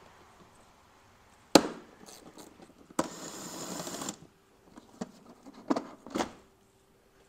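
A Milwaukee cordless power tool spins for about a second, backing out a screw on the plastic DME cover of a BMW E46. A single sharp click comes before it, and a few light plastic knocks follow as the cover is handled.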